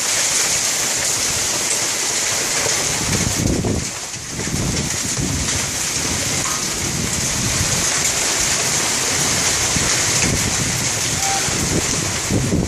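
Hailstorm pelting the house: a dense, steady hiss of hail and heavy rain, with wind gusting against the microphone from a few seconds in.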